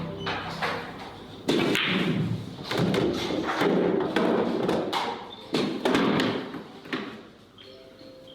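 Billiard balls knocking and thudding in a run of separate shots and collisions over background music.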